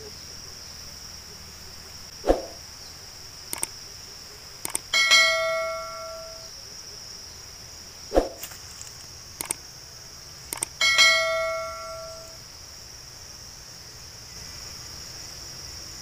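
Steady high insect drone throughout. Over it come two bell-like metallic rings about six seconds apart, each lasting about a second and a half and preceded by a few clicks, plus a couple of short knocks.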